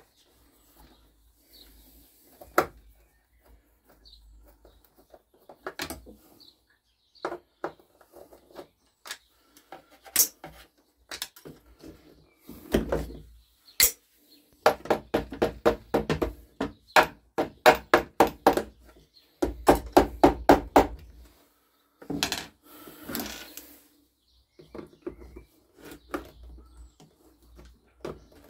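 Hand tools clinking and knocking on the metal parts of a small two-stroke engine as it is taken apart. In the middle there is a run of quick, regular knocks, about four a second.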